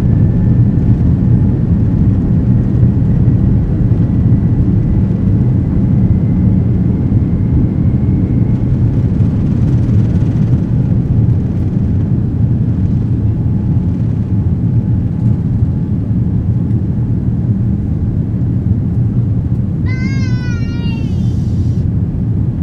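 Cabin noise of a Boeing 787-9 under takeoff power: its GE GEnx engines and the airflow making a loud, steady, deep rush as it rolls, lifts off and climbs, with a faint thin whine rising slightly in pitch over the first several seconds. About twenty seconds in, a short high wavering cry sounds over it.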